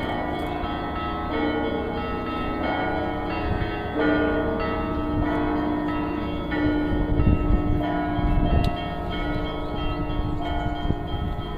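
Russian Orthodox church bells rung by hand in a festive Ural-style 'red ringing' (krasny zvon) peal: many bells of different pitches struck in turn, their tones ringing on and overlapping, with heavier low strokes about two-thirds of the way through.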